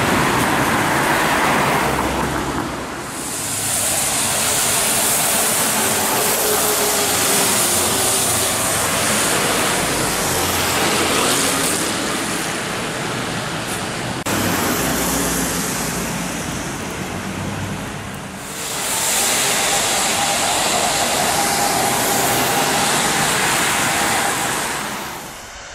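Road traffic on a wet street: cars and city buses driving past, tyres hissing on the wet asphalt over engine noise. The hiss swells twice as vehicles pass close.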